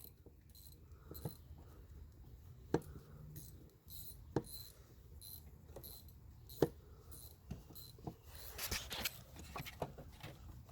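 Hand-tool work on an ATV fuel valve: light, scattered clicks and scrapes of a screwdriver turning the valve's screws.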